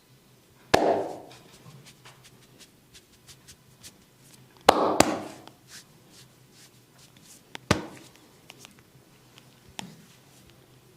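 Hands striking bare skin during a massage: about five loud, sharp slaps or pops, two of them in quick succession midway, with faint light taps between.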